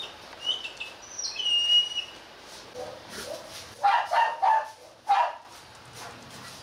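Small birds chirping with short whistled calls in the first couple of seconds, then a dog barking: three quick barks about four seconds in and one more a second later.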